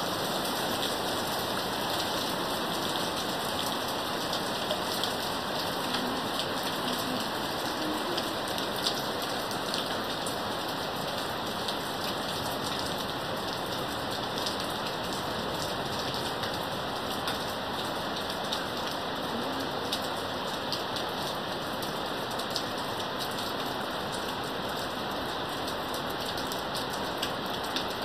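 Heavy rain falling steadily, with many close drops ticking on a nearby surface over a dense, even hiss.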